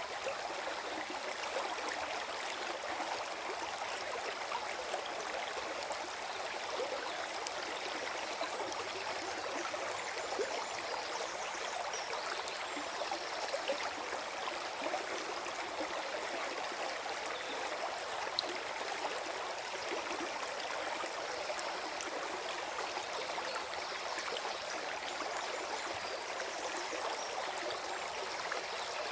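Small forest stream flowing and gurgling over stones, a steady rush of water with light, quick splashes and trickles.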